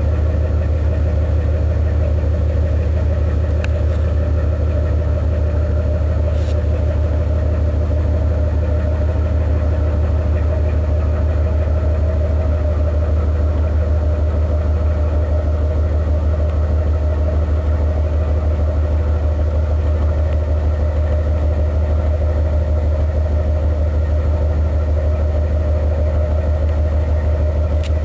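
1950 Fairbanks-Morse marine diesel engine running steadily: a loud, even, deep drone, with a few faint ticks over it.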